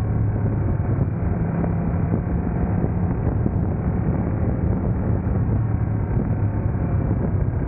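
Sport motorcycle running at freeway speed: a steady engine note under a constant rush of wind and road noise.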